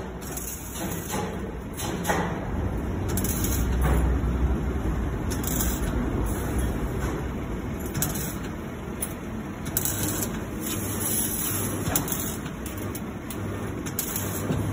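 CO2-shielded MIG welder tack-welding steel wire, the arc crackling in irregular spurts with sharp pops now and then. A low hum cuts in and out over the second half.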